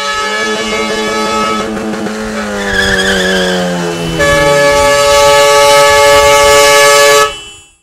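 A vehicle passing close with its pitch slowly falling, then a truck's multi-tone air horn blasting loud and steady for about three seconds before cutting off.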